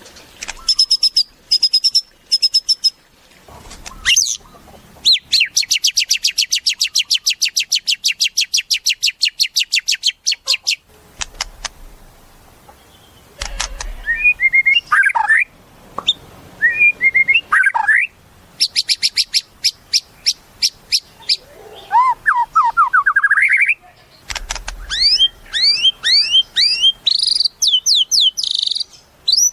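White-rumped shama (murai batu) singing a varied, loud song. It mixes long runs of very fast rattling notes, short whistled phrases and series of rising sweeping whistles.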